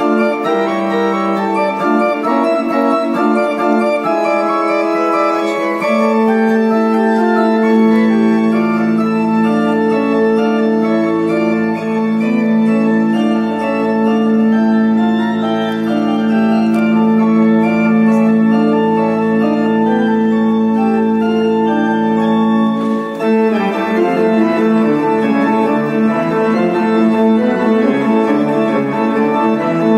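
Church pipe organ playing: quick moving notes at first, then long held chords over a deep pedal bass note that comes in about eight seconds in, breaking back into faster figures a little after twenty seconds.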